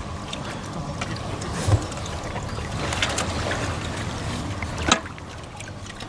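Lakeside ambience: a steady rumble of wind on the microphone with small waves lapping at the shore. A low thump comes a little before two seconds in, and a single sharp knock just before five seconds.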